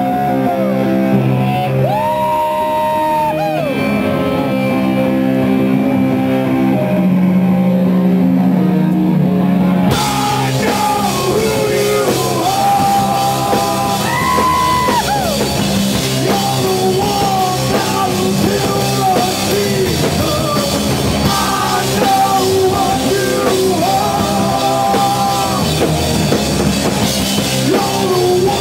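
Live rock band playing loud: an electric guitar leads alone with long, bending notes for about the first ten seconds, then the drums and cymbals crash in and the full band plays on.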